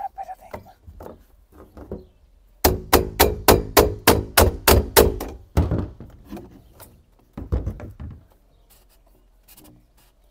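A fast, even run of knocks, about five a second for some three seconds, each with a ringing note. A shorter run follows a couple of seconds later.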